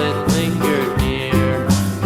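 Upbeat background music with a steady beat, no singing.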